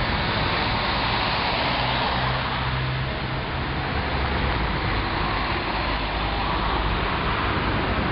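Steady street traffic noise: a continuous wash of passing cars with a low rumble underneath.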